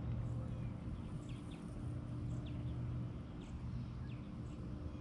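Birds chirping in short, high, downward notes, roughly once a second, over a steady low hum.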